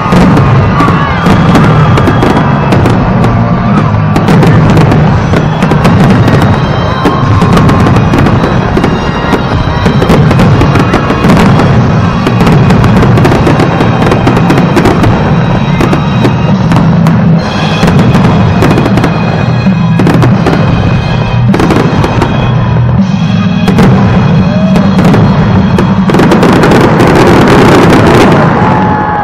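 Aerial fireworks going off in a dense, continuous barrage of bangs and crackling, very loud throughout and thickest near the end, with music playing underneath.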